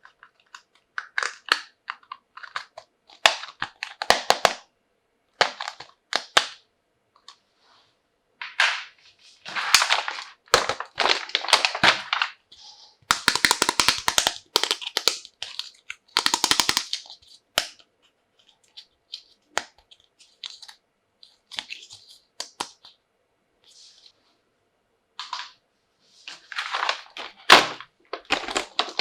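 Plastic toy packaging and pieces being handled up close: irregular crackling, clicking and rustling, with a couple of quick runs of crackles about halfway through.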